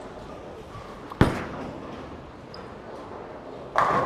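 A bowling ball thuds down onto the lane about a second in and rolls with a low rumble, then pins crash and clatter near the end as it strikes the rack.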